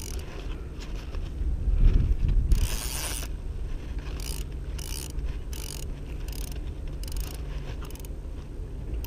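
Spinning reel's drag giving line in short rasping bursts, about one every two-thirds of a second, with a longer run about two and a half seconds in, as a hooked mullet pulls against light tackle.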